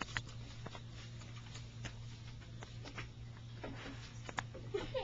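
Faint scattered clicks and scratches of a young raccoon's claws on a wooden porch swing and clothing as it clambers about, over a steady low hum.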